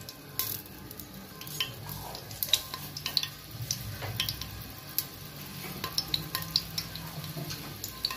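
Fenugreek seeds and black peppercorns frying in oil in an aluminium pressure cooker, giving a light sizzle with scattered small crackles and pops.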